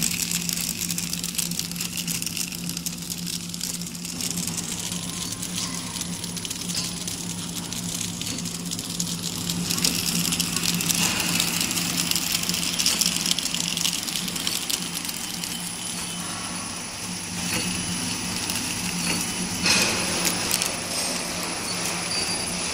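Automatic spoon-wrapping machine running: a steady motor hum under continuous fine clicking and rattling of its mechanism, with a few louder knocks near the end.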